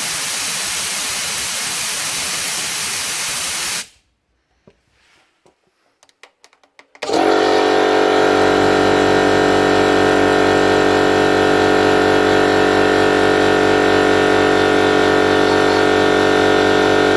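Compressed air hissing out of a 50-litre air compressor tank as it is vented down from over-pressure, cutting off abruptly about four seconds in. After a few near-silent seconds with faint clicks, a loud steady drone of several held pitches starts about seven seconds in.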